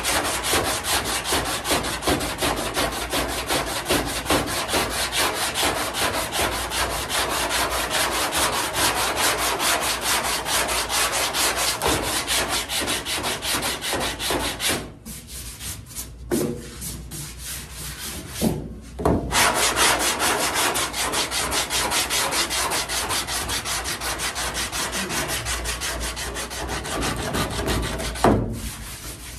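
Hand block sanding of cured body filler on a 1968 Firebird's steel door and quarter-panel seam, with coarse sandpaper on a sanding block: quick, even back-and-forth rasping strokes. The sanding stops for a few seconds about halfway, with only a couple of single strokes in the gap, then resumes and stops near the end.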